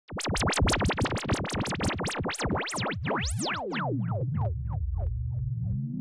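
Synthesized electronic logo sting: a rapid run of sweeping zaps that slow down over about four seconds, settling into a low steady hum, with a rising sweep starting near the end.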